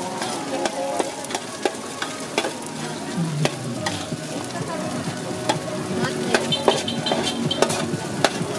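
Stir-fried egg noodles sizzling on a large, shallow steel pan while a metal spatula repeatedly scrapes and clacks against the pan, tossing and turning them.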